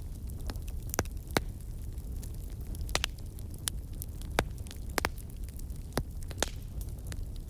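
Wood fire crackling in a fireplace, with sharp irregular pops over a steady low rumble of burning.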